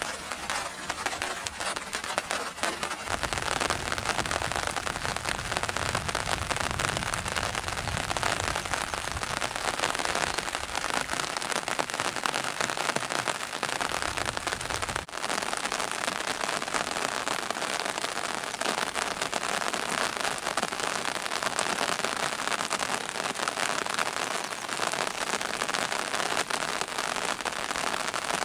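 Steady rain falling, a dense crackle of drops. A low rumble joins about three seconds in and cuts off abruptly about halfway through.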